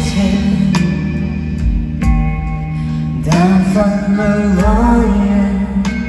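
Indie pop band playing live through a PA: guitars, bass and drums, with a sung vocal line coming in about halfway through.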